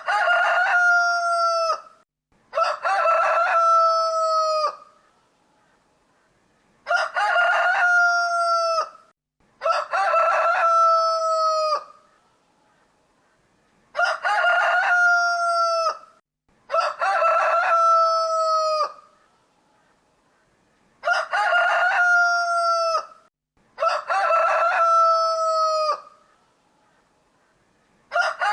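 Rooster crowing cock-a-doodle-doo in pairs of crows, each about two seconds long and ending on a falling note. The pairs repeat about every seven seconds, eight crows in all, and a ninth begins at the very end.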